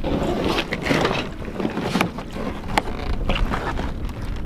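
Wind buffeting the microphone, with knocks and scrapes as an upturned Porta-Bote folding plastic dinghy is handled and lowered onto a catamaran's deck; two sharp knocks stand out about two and three seconds in.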